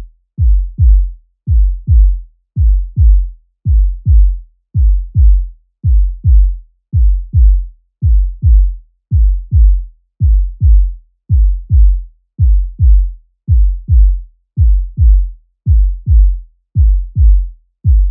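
Human heartbeat sound effect: deep paired lub-dub thumps repeating steadily, a little slower than once a second.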